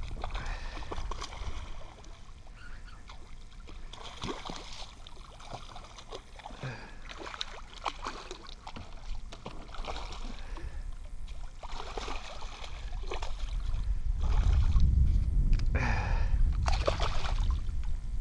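Hooked bowfin thrashing at the water's surface beside a kayak, splashing in scattered bursts that grow heavier near the end.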